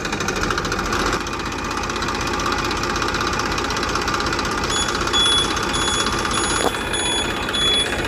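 A small motor running steadily with a fast rattle. From about five seconds in, short high beeps repeat about twice a second.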